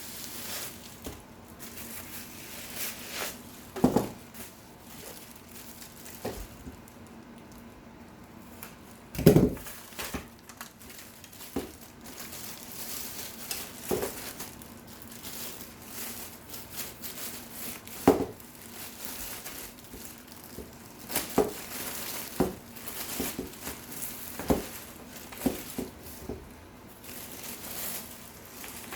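Packaging being handled and unwrapped: cardboard and plastic crinkling, rustling and tearing, broken by irregular knocks and thumps, the loudest about nine seconds in.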